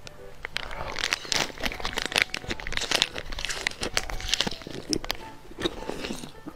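Crinkling of a plastic latiao snack packet, handled and squeezed as the chewy spicy gluten strips are bitten straight out of it, mixed with mouth-close chewing. Irregular crackles come throughout.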